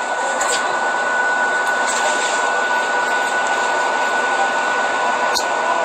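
Steady, loud rushing machine noise with a thin, steady high whine running through it, and a few faint clicks.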